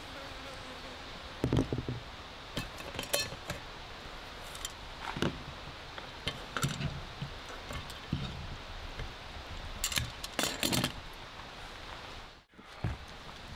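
Light clinks and knocks of a metal bowl and a wooden cutting board being handled as cut octopus pieces are moved into the bowl, with a quick run of sharp clinks about ten seconds in.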